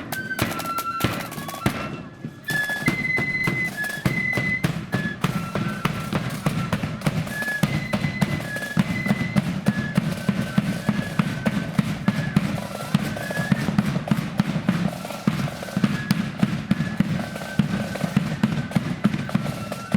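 Blood-and-thunder marching flute band playing a tune: flutes carry the melody over rapid snare drumming and heavy bass drum beats, with a brief lull about two seconds in.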